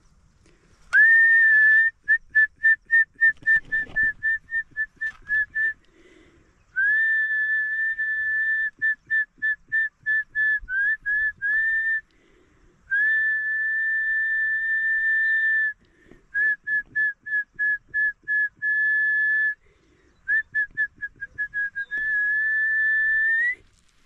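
A man whistling one steady high note in several phrases: long held notes alternating with runs of quick short toots, about three a second, with short pauses between them. The last held note rises slightly at its end. It is a whistle to call up the wind.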